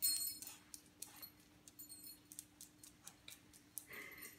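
Small dog's claws ticking irregularly on a hardwood floor as it moves about sniffing, with a louder click right at the start.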